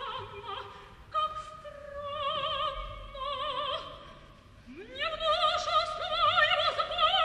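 Operatic soprano singing slow held notes with a wide vibrato and only sparse accompaniment. About five seconds in she slides up into a louder sustained high note.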